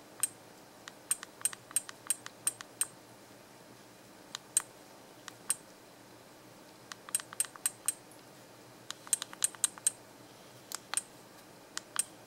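Small buttons on a handheld action camera being pressed again and again to step through its settings menu. The sharp clicks come in quick runs of several a second, with short pauses between the runs.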